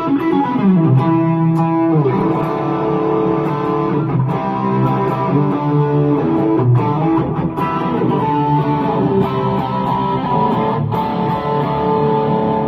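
Electric guitar played through a mini guitar amplifier pedal: held notes and chords, with a slide down in pitch in the first second.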